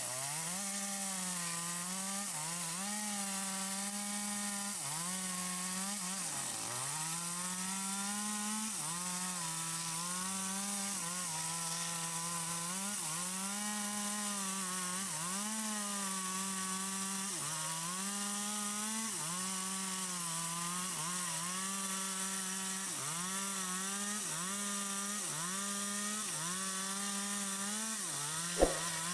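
Stihl MS 250 two-stroke chainsaw with a long 25-inch bar cutting through wood at full throttle. The engine pitch sags and recovers about every one to two seconds as the chain bites and clears, dipping deepest about six seconds in. A single sharp knock comes near the end.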